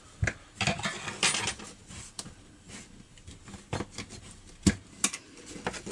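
Plastic parts of a string trimmer's control handle clicking and clattering as they are handled, the throttle trigger and its springs being taken out. The clicks are scattered, with two sharper ones a little before the end.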